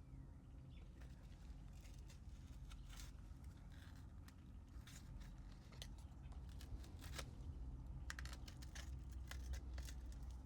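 Faint small clicks and scrapes of tools working on a smartphone being opened, over a low steady hum.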